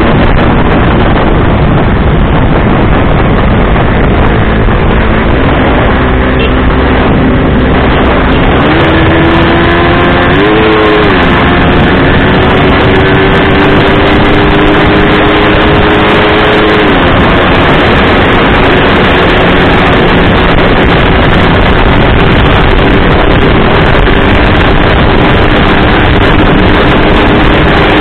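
Heavy wind noise on the microphone over a 150 cc motorcycle engine held at high revs at over 100 km/h. The engine note climbs twice around nine to eleven seconds in, holds steady, then drops slightly around seventeen seconds and runs on.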